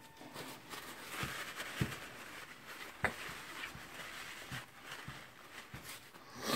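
Light clicks and taps of small metal parts and screws being handled and fitted into a housing, with faint rustling between them.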